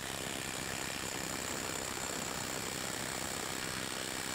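Hart HPIW25 20-volt brushless 1/2-inch mid-torque impact wrench hammering continuously at full trigger, building torque on a bolt under load; it starts abruptly and keeps a steady, even rattle of rapid impacts.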